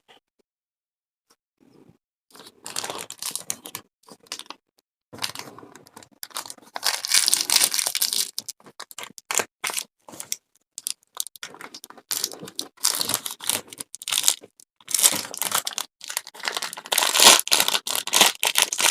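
Packaging crinkling and tearing in irregular bursts, starting about two seconds in and getting busier towards the end, as the food is unwrapped.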